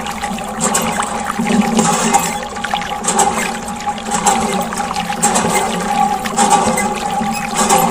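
Water churning and splashing steadily, over the steady hum of a small electric motor.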